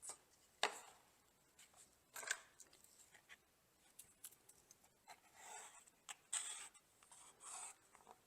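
Faint, scattered clicks and knocks, then a few soft rubbing or scraping sounds, over quiet room tone: small handling noises of wood and tools in a workshop.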